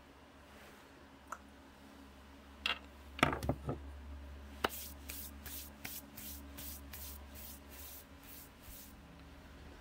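Small tools and metal parts knocked and set down on a wooden workbench, a quick clatter of knocks being the loudest, then a run of about eight quick rubbing or scraping strokes, about two a second, over a low steady hum.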